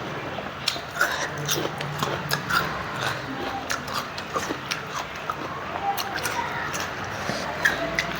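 Eating sounds: wet chewing and lip smacking, with many sharp mouth clicks and short squelches.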